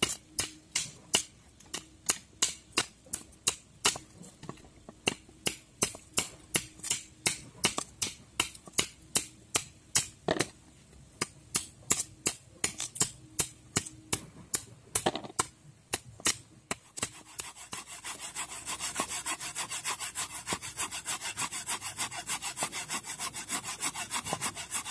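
Blade chops on pumpkin and coconut over a wooden board, sharp knocks about two a second. About seventeen seconds in they give way to a fast continuous scraping: coconut flesh being rubbed on a hand grater.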